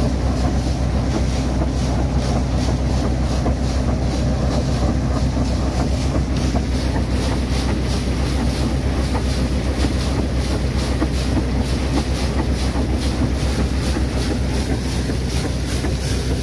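Water gushing under strong pressure from a newly drilled borewell's discharge pipe and spraying onto a palm trunk and muddy ground, over the drilling rig's engine running steadily. A fast even pulse of about four a second runs through the rush.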